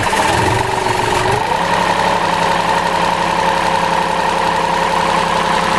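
Westerbeke marine diesel generator running after starting, its pitch rising about a second and a half in and then holding steady. It runs too slow, below its normal 1800 rpm, a sign of the engine struggling for fuel, which the owner puts down to a dirty fuel filter.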